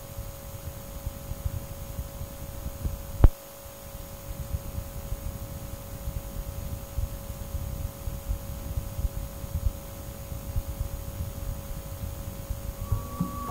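Steady background hum of an old cassette recording: a low, fluttering rumble with a few faint held tones above it, and one sharp click about three seconds in.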